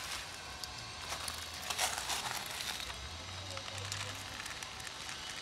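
Light crackling and rustling from a person moving over dry leaves and twigs while handling a plastic tub of dry cat kibble, with a louder brush about two seconds in.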